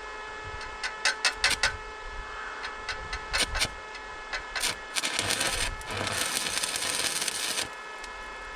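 Stick arc welder tacking the steel frame: the arc is struck in a few short crackles, then catches and burns with a steady crackle twice, for about half a second and then about a second and a half, stopping shortly before the end.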